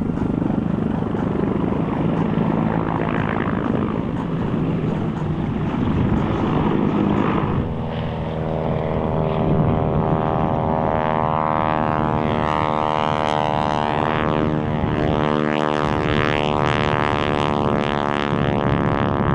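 Propeller airplane flying overhead: a rushing engine and air noise for the first several seconds, then from about eight seconds in a steady, many-toned engine-and-propeller drone.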